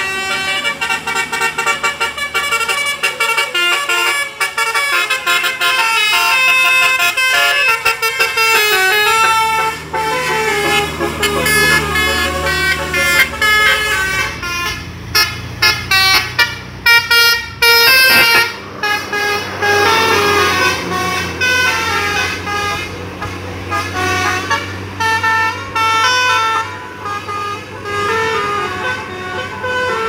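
Indonesian 'telolet' multi-tone bus horn, driven by a DAV melody module, playing quick runs of changing horn notes without a break. A low engine drone sits beneath it in parts.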